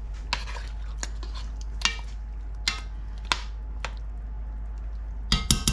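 A metal utensil stirring a pot of soup, scraping and clinking against the pot every second or so, with a quick run of ringing clinks near the end. A steady low hum runs underneath.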